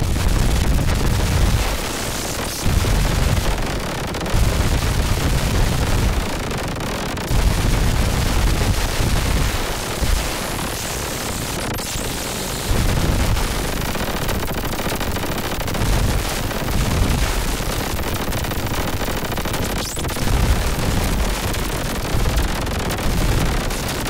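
Modular synthesizer played live as harsh electronic noise: a dense crackling hiss spread over all pitches, above a deep rumble that pulses on and off roughly every one to two seconds.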